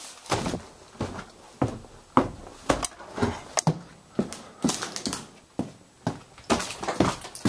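Footsteps climbing wooden basement stairs and crossing the floor above, about two heavy steps a second.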